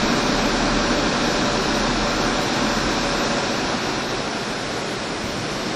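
Steady rushing noise of a MiG-29UB fighter jet in flight, airflow and engines blended into an even roar, which eases slightly about four seconds in.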